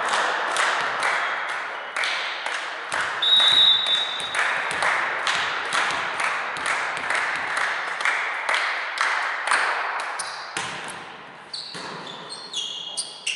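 Rhythmic group clapping in a sports hall, about four claps a second. A short referee's whistle blast sounds about three seconds in, and sneakers squeak on the court floor near the end.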